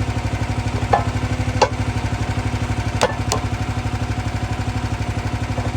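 The small engine of a Wolfe Ridge 28 compact commercial log splitter runs steadily with an even, rapid beat while the splitter presses a bent aluminium wheel. A few short sharp clicks sound over it about a second in and around the three-second mark.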